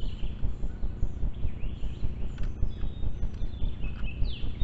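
Wild birds chirping and calling over a fast, even low thumping, about four beats a second.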